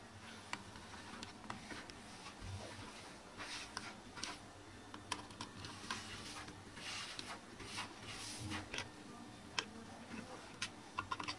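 A screwdriver turning a screw in a flush-mounted wall socket's metal mounting frame: faint, irregular small clicks with a few short scrapes of metal on metal.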